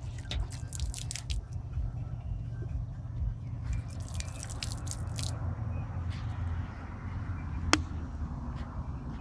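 A stream of water splashing onto a Gtechniq C1 and EXO-coated car hood and beading off the paint, in two spells of crackly splashing a few seconds apart, over a steady low rumble. A single sharp click near the end is the loudest sound.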